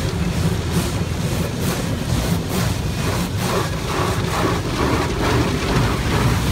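Automatic car wash heard from inside the car: water spray drumming on the glass and body, with brushes and cloth strips swishing across the car about twice a second over a steady low rumble of the wash machinery.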